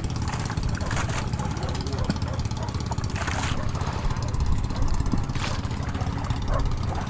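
Motorized bangka boat's engine running steadily, a low rhythmic hum, with a short hiss every two seconds or so.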